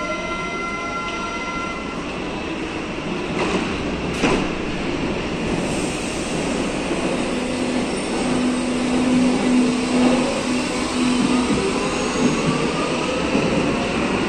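Berlin U-Bahn train pulling out of the platform and gathering speed past the camera, its traction motors giving a rising whine over the running noise of wheels on rail. Two sharp clunks come about three and a half and four seconds in.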